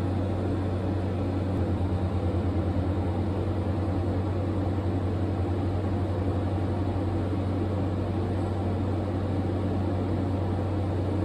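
Steady low mechanical hum with a fast, even flutter in it from about a second and a half in.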